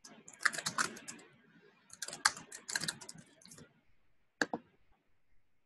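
Typing on a computer keyboard: two quick runs of keystrokes, then a single louder key press about four and a half seconds in.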